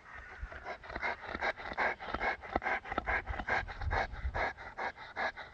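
Landseer Newfoundland dog panting hard and fast, about four to five breaths a second, close to the microphone: a heavy dog worn out from a long walk.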